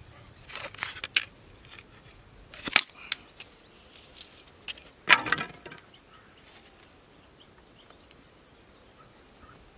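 A large curved knife striking and cutting into a green wooden stick: several sharp cuts, the loudest about three seconds in and another about five seconds in.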